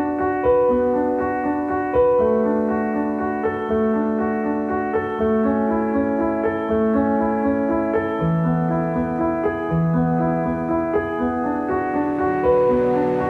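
Background music led by a piano, soft sustained chords changing about once a second.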